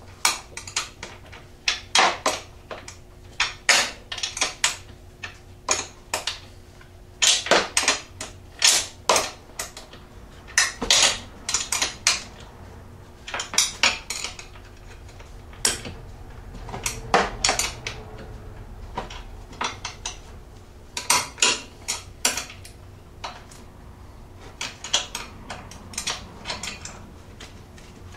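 Hand wrench clicking and clinking on the bolts and nuts of a steel ATV foot peg extender as they are tightened: short irregular runs of sharp metal clicks, a run every second or two.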